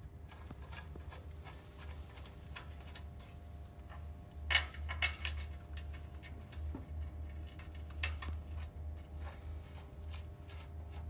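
Scattered light metal clicks and ticks as a forklift hand brake lever is handled and fitted to its mounting bracket, with sharper clicks about four and a half and eight seconds in, over a steady low hum.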